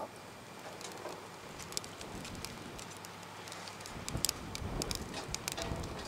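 Wood fire crackling in a Lixada folding stainless-steel twig stove, with scattered sharp ticks and pops. A low rumble joins in over the last two seconds.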